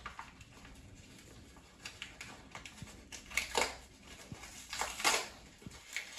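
Paper bag of Gold Medal all-purpose flour crinkling as its folded top is pulled open by hand: several short, crisp rustles, the loudest about three and a half and five seconds in.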